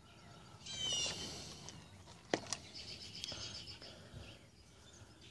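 Songbirds singing in the background: a warbling phrase about a second in and a quick run of short high chirps around three seconds. A sharp click about two and a half seconds in, with a couple of fainter ones after it.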